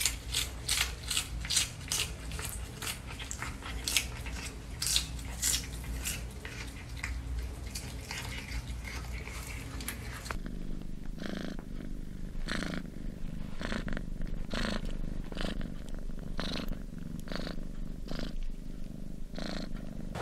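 A cat crunching on a lettuce leaf, a few sharp bites a second. About halfway through, a cat purring close to the microphone in a steady low rumble that pulses about every two-thirds of a second.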